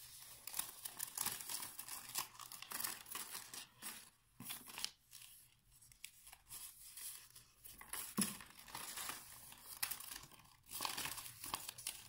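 A folded, cut sheet of paper rustling and crinkling as it is unfolded and handled by hand, in irregular scrapes and crackles that ease off for about a second around five seconds in.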